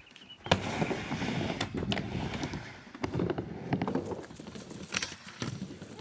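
Skateboard wheels rolling on a plywood miniramp, starting about half a second in, with several sharp clacks of the board hitting the ramp.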